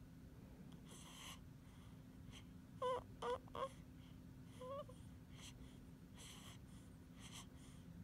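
Sleeping newborn baby squeaking: three short, high squeaks in quick succession about three seconds in, then one more a second later, among faint breathy sounds.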